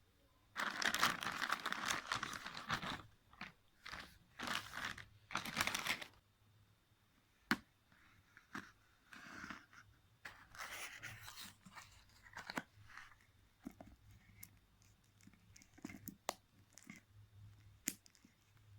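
Smartphone box packaging being opened by hand: plastic wrap tearing and crinkling in two long rustling stretches, followed by scattered small clicks and taps as the box and its parts are handled.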